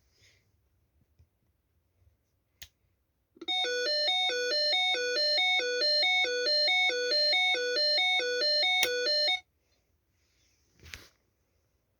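Warning light's alarm speaker sounding an electronic two-tone signal, a low and a high note alternating about twice a second for about six seconds, then cutting off suddenly. A sharp click comes shortly before it starts and another just before it stops.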